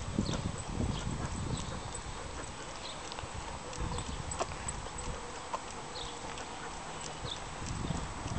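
Footsteps of a person and a leashed dog walking on a concrete pavement: soft thuds in an uneven walking rhythm, with light, irregular clicks.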